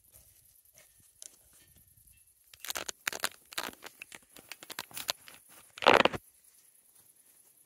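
Rustling and crackling handling noise: a dense run of short, sharp crackles starting about two and a half seconds in, ending in a louder rustle about six seconds in.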